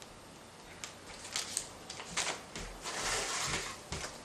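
Rustling and crinkling of shredded-paper packing fill as a hand digs through a cardboard shipping box, with a few scattered clicks and light knocks.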